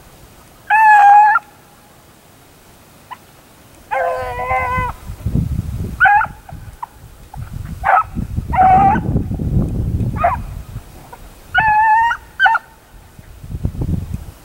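A pack of beagles baying on a cottontail's scent trail: about eight short, ringing bawls from several hounds, with low rumbling noise between them.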